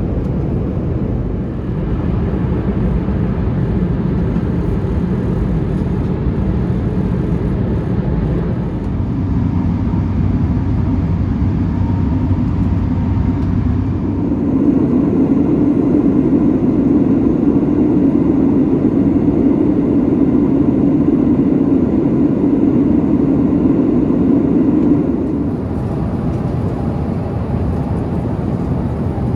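Airbus A350-900 jet engines and airflow heard from inside the passenger cabin: a loud, steady rushing drone, mostly low in pitch. It swells about halfway through, with a deeper hum coming up, then eases back a few seconds before the end.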